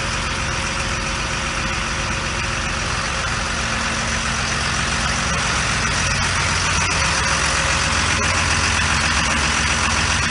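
Fire engine's diesel engine idling steadily, getting slightly louder partway through.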